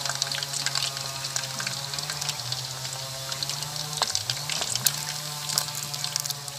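Beef pieces frying in hot oil in a pan, sizzling with dense crackling and spattering throughout. Underneath runs a low steady hum that shifts in pitch a few times.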